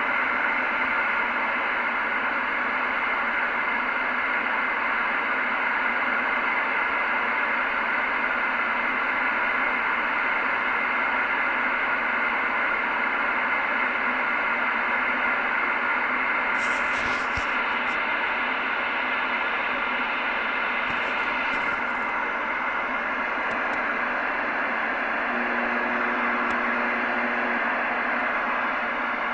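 Steady electrical arcing noise coming through a CB radio's speaker as interference, with a few faint steady tones running through it and a few brief clicks past the middle. The owner suspects a nearby transformer is causing it.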